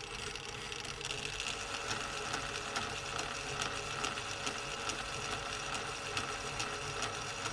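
Atlas 10-inch metal lathe running steadily while a threading tool cuts left-hand Acme threads on a 304 stainless steel rod.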